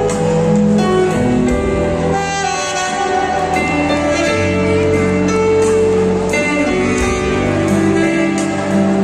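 Instrumental music with a slow melody of long held notes over a sustained accompaniment.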